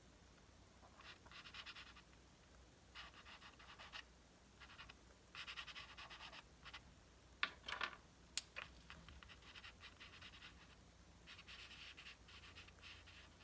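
Faint scratching of a pastel stick stroked over paper, in several short runs of quick strokes, with a single sharp click about eight seconds in.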